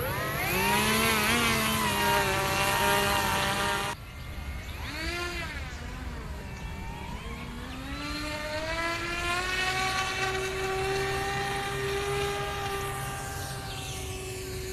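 Motors and propellers of a radio-controlled twin-engine PBY Catalina model seaplane running, their pitch rising and falling with the throttle. About four seconds in the sound cuts off abruptly and comes back quieter, then climbs and holds a steady high note.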